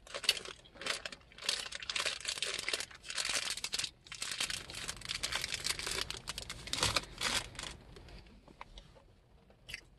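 Candy packaging being handled and torn open, a dense run of crinkling and tearing that stops a couple of seconds before the end.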